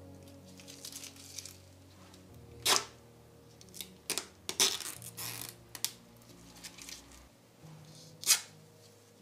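Gloved hands handling an ASUS ROG RTX 4090 graphics card and peeling protective plastic film off its shroud: irregular plastic crackles and sharp clicks, the loudest a few seconds in and again near the end.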